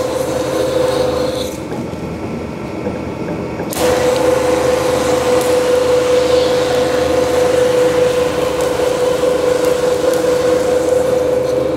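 Two-roll rubber mill running, a steady whine from its drive over a rubbing, grinding noise as the rubber compound is worked between its steel rolls. The whine drops away about a second and a half in and cuts back in abruptly about two seconds later.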